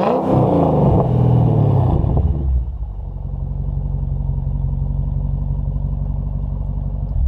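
Mercedes-Benz CLK55 AMG's 5.4-litre V8 exhaust, blipped twice with the car standing, then settling to a steady idle about two and a half seconds in.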